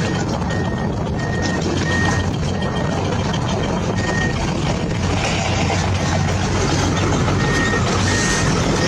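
Vehicle reversing alarm beeping at one pitch, in a few short beeps early on and then a regular run of about two beeps a second near the end, over a steady dense engine-like noise with a low hum.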